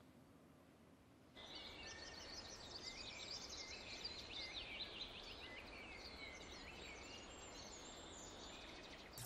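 Faint woodland ambience: several birds chirping and singing over a soft steady background rush. It starts about a second in, after near silence.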